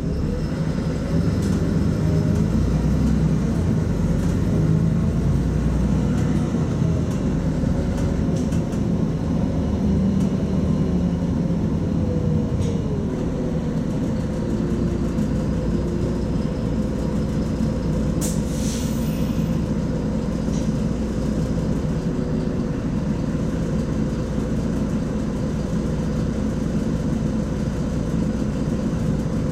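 Cabin sound of a LiAZ-5292.22 city bus: the diesel engine and drivetrain run steadily under way, easing somewhat in the second half as the bus slows. There is a short hiss of air about two-thirds of the way through.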